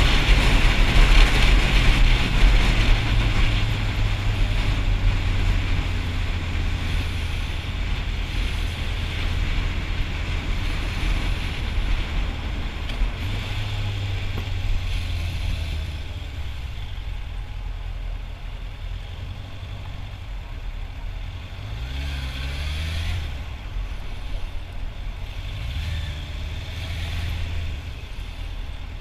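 Motorcycle on the road: wind rush over the rider's microphone that fades as the bike slows, under a steady engine note. Near the end the engine twice rises in pitch as it pulls away.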